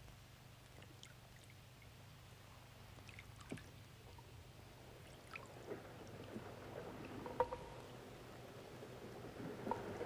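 Faint water sounds, scattered drips and light lapping splashes, growing denser and a little louder over the second half, over a low steady hum.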